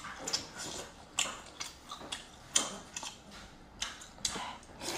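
Close-up eating sounds: wet chewing and lip smacks on a mouthful of lobster meat dipped in sauce, an irregular run of sharp clicky smacks, the sharpest about two and a half seconds in.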